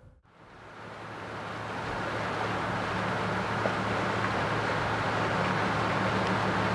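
An engine running steadily, a low hum under a rushing noise of wind and water. It fades up after a brief dropout right at the start.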